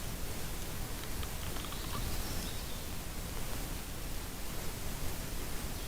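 Steady outdoor background hiss with faint rustling.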